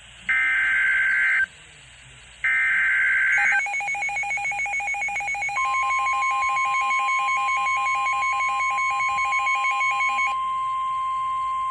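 NOAA Weather Radio Emergency Alert System tones announcing a severe thunderstorm warning: two roughly one-second bursts of the screeching digital SAME header, then a rapid two-pitch electronic alarm beeping. About halfway through, the steady 1050 Hz weather-radio warning tone starts and keeps sounding.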